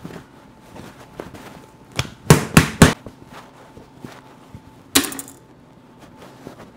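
Heavy pizza dough slapped down onto a marble counter: a single thump, then three loud thumps in quick succession. A further sharp hit with a short hiss follows about five seconds in, amid quieter handling noise.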